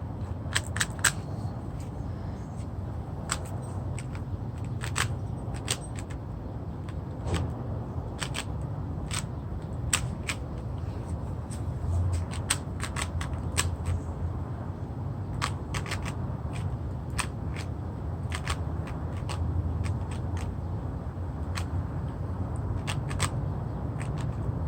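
Rubik's cube being turned quickly by hand: irregular clicks and clacks of the plastic layers, some in quick runs, over a steady low hum.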